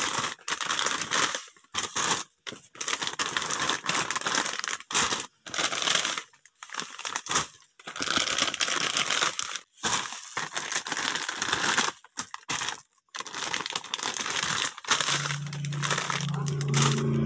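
Plastic wrappers of Super Q Golden Bihon noodle packs crinkling and rustling as they are handled and shuffled, in irregular bursts with short gaps. Near the end a low steady hum, like an engine, comes in.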